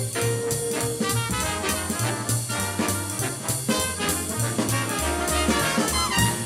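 Big-band jazz recording: a brass section playing over a swinging rhythm section with a steady beat.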